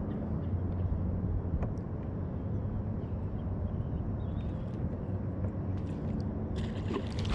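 Steady low rumble of wind buffeting the camera microphone over open water, with a faint low hum underneath and a few light ticks.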